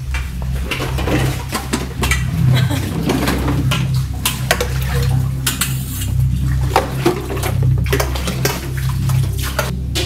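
Clatter of dishes and pots being handled, with many sharp knocks of hard objects against each other, over a steady low hum.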